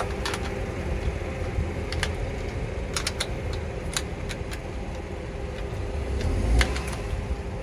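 Light metallic clicks and clinks, about seven scattered through, as a socket and the valve-cover bolts are seated and turned on a Honda B18C's valve cover, over a steady low rumble.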